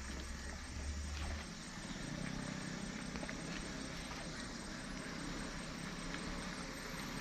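Diesel engine of a loaded light truck running steadily at low speed as it crawls along a muddy dirt track, with a few faint ticks over the low rumble.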